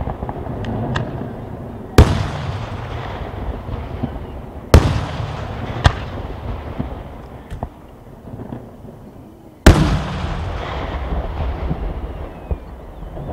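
Aerial fireworks shells bursting: three very loud sharp bangs about two, five and ten seconds in, each followed by a low rumbling echo, with lighter cracks in between.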